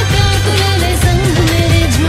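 Background music with a steady beat and a sung melody over it.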